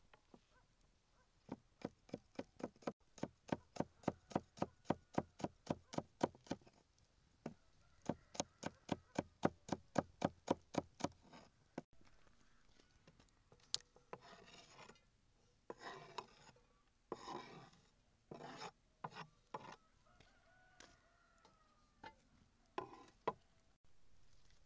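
Knife chopping vegetables on a wooden board: two runs of quick, even strokes, about four a second, in the first half. Then scattered scrapes and knocks of wood and metal.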